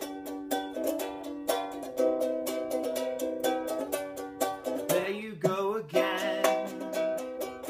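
Ukulele strummed in a steady rhythm, playing chords. About five seconds in, a brief wordless sung note with a wavering pitch rides over the strumming.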